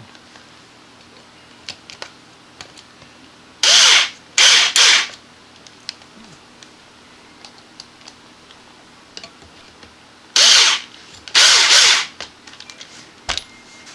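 Power drill driving screws into PVC pipe in short bursts: two clusters of two or three quick trigger pulls, one about four seconds in and one near eleven seconds, with small handling clicks in between.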